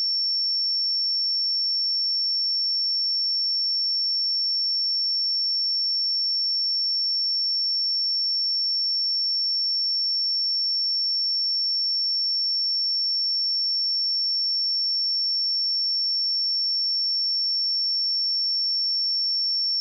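Pure 5445 Hz sine-wave test tone, a single steady high-pitched note held without change.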